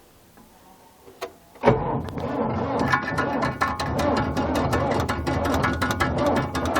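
Belarus MTZ tractor engine on a hard cold start at −14 °C: after a single click, it suddenly catches about a second and a half in and runs with a dense, rapid, uneven clatter.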